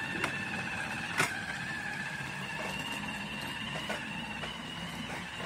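Battery-powered ride-on toy motorcycle's electric drive motor and gearbox whining steadily as it rolls along, with a couple of sharp clicks, the loudest a little over a second in.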